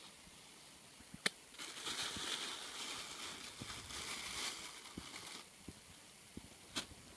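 Rustling of cut leafy branches and dry ground litter as they are handled and shifted over the trap, lasting about four seconds, with a sharp click shortly before it and another near the end.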